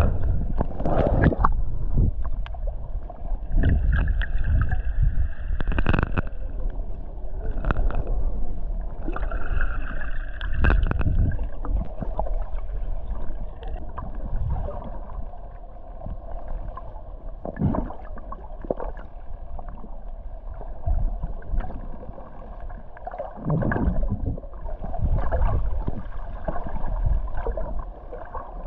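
Water gurgling and sloshing, with irregular knocks and bumps throughout.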